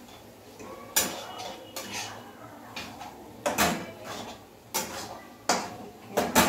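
A long metal spatula scraping and knocking against a black kadai while stirring, with sharp metal clinks at irregular intervals about a second apart.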